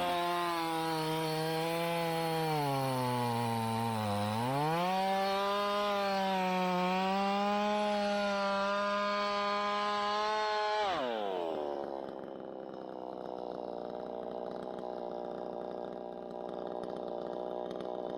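Chainsaw cutting wood at full speed. Its pitch sags under load about three to four seconds in, then picks back up. Around eleven seconds in the saw is let off and winds down with a falling pitch, leaving a quieter steady hum.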